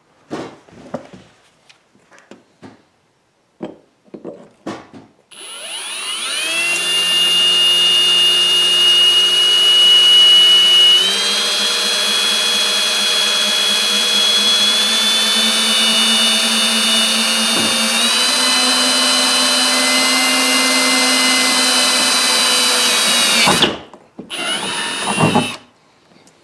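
Ridgid cordless drill boring through an aluminum boat gunwale. A few seconds of handling knocks and clicks come first. Then the drill's motor whine runs steadily for about eighteen seconds, stepping up in pitch twice, stops, and runs again briefly near the end.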